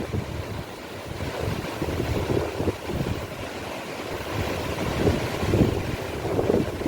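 Strong wind gusting and buffeting the microphone: a low rumbling rush that swells and eases several times.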